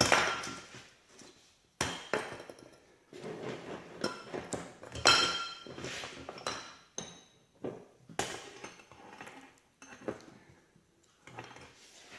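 Steel roller chain of a Case IH 3650 baler being handled and looped into place: a series of metallic clanks, clinks and rattles, the sharpest about two, five and eight seconds in, each ringing briefly.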